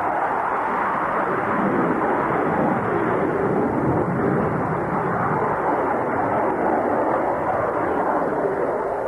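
Jet engine noise from a delta-winged fighter jet manoeuvring in a flying display: a continuous rushing roar that swells a little around the middle.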